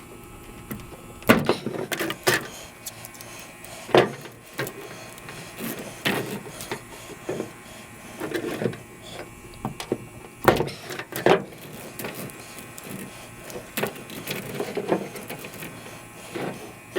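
Hand snips biting through aluminum-sheathed cable and the wire inside: a string of sharp, irregular snaps and crunches a second or two apart, with handling rustle between cuts.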